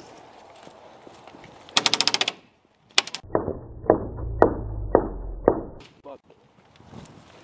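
Airsoft gun firing a short, rapid full-auto burst about two seconds in. It is followed by a run of about six muffled knocks, roughly half a second apart.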